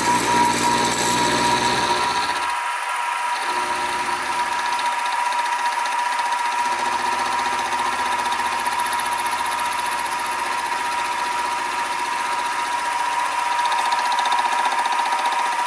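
Sieg SX2P mini mill running with an end mill cutting a radius on the end of a model steam-engine conrod. The part is turned on a rotary table. The spindle gives a steady high whine over a continuous cutting hiss, and a lower rumble drops away about two and a half seconds in.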